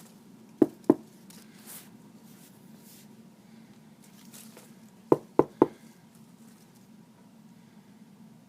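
Two sharp knocks, then about four seconds later three more in quick succession, over a faint steady hum.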